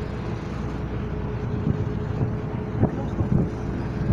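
Tour boat's engine running with a steady low hum while the boat cruises along the river, with a few faint voices in the background.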